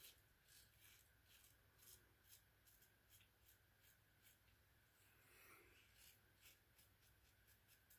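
Faint, short scratching strokes of a Star single-edge safety razor cutting stubble on the upper lip, a few strokes a second.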